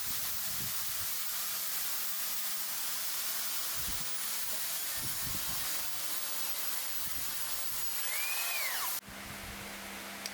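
Compressed-air paint spray gun hissing steadily as it sprays, stopping abruptly about nine seconds in, after which a quieter steady low hum remains.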